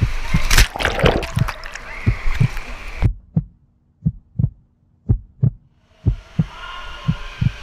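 Heartbeat sound effect: low double thumps repeating about once a second, used as a suspense build-up. Splashy pool noise sits under them for the first few seconds. They then stand alone against silence, and a steady low hum joins them near the end.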